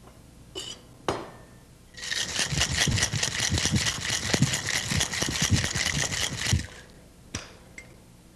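Ice rattling hard in a cocktail shaker as a drink is shaken for about four and a half seconds, stopping abruptly. A couple of short knocks come just before the shaking, and one more shortly after it.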